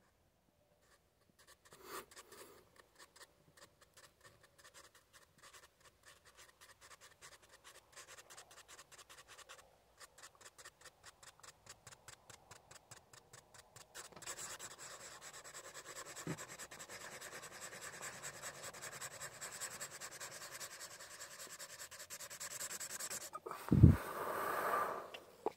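Dry chisel-tip Sharpie marker dabbing and scratching on textured paper: rapid light taps at first, then steady dense scratching from about halfway as it shades in. A single loud thump near the end.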